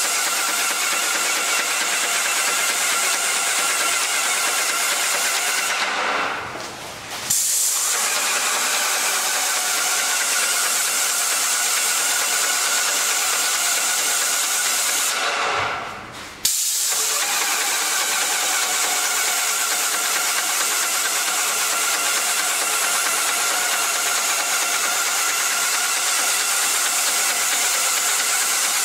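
Airless paint sprayer spraying wall paint: a steady hiss from the gun's tip over a steady mechanical hum. It dies away twice, about six and fifteen seconds in, and cuts back in abruptly each time.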